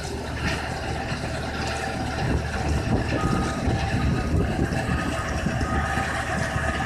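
Erin TD125T (Fintec 540) mobile screener running, its Deutz diesel engine and conveyors droning steadily while stone rattles off the belt. From about three seconds in, a vehicle's reversing alarm beeps about once every three-quarters of a second.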